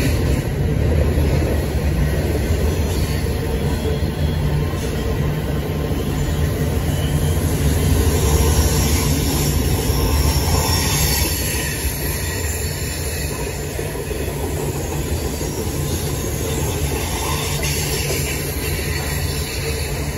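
Freight train rolling steadily past: a continuous low rumble of the cars' wheels on the rails, easing off slightly about halfway through.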